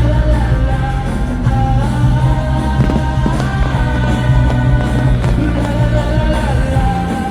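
Loud show soundtrack music over a heavy, steady bass, with a held, slowly gliding sung melody line on top.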